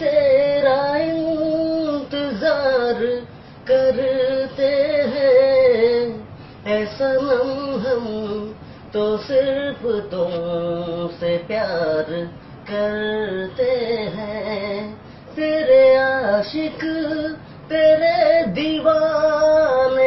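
A young man singing unaccompanied in a high voice, in sung phrases a few seconds long with short breaks for breath between them.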